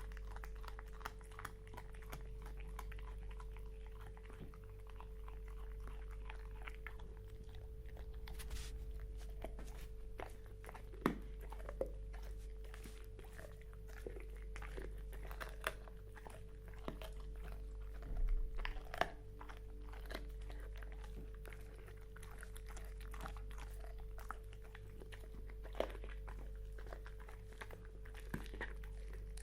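A dog chewing on bones: irregular crunches and cracks of bone with wet licking and mouth sounds, a few sharper cracks standing out, over a steady low electrical hum.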